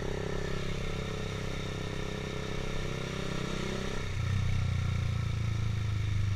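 Honda CBR150R's single-cylinder engine running on the move. Its tone sinks over the first few seconds, then a louder, lower steady drone comes in about four seconds in.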